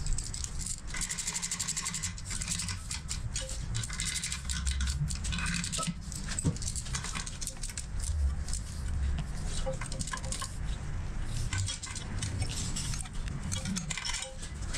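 Hand tools clicking and clinking against metal parts on a Mitsubishi 4G63 engine as bolts are worked on, with a rapid run of clicks about a second in, over a low rumble.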